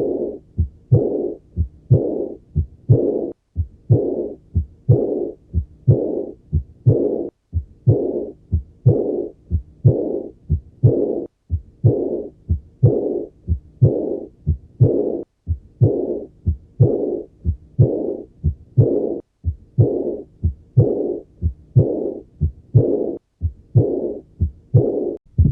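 Human heartbeat with a murmur: a steady beat about once a second, each beat made of low thuds with a rushing murmur running through it.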